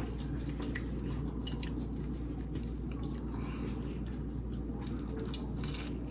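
A person chewing a mouthful of buttered crumpet with jam, giving soft, wet, irregular mouth clicks.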